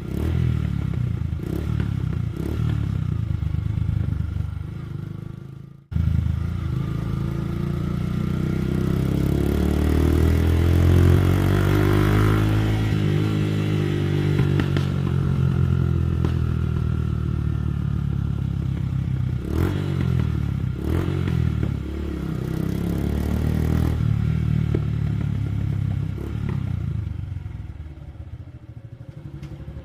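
Suzuki Gixxer 150 SF's single-cylinder engine through a modified exhaust, blipped and revved with crackles and pops from the exhaust as the revs drop. The sound breaks off abruptly about six seconds in, then a long rev climbs and falls away, with more sharp pops later and a quieter, lower run near the end.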